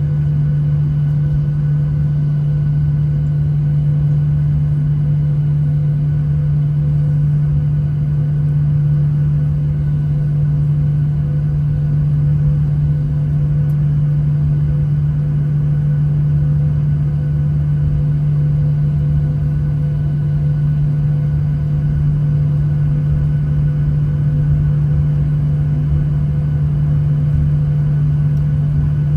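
Boeing 737 cabin noise while taxiing: a steady low hum from the engines and cabin systems, with a rumble underneath.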